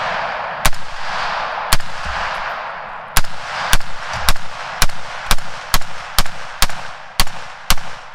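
A .308 PSA AR-10 semi-automatic rifle fitted with a short, simple muzzle brake, firing about a dozen shots. Each sharp report is followed by a long echo. The first few shots come more than a second apart, then the pace quickens to about two a second.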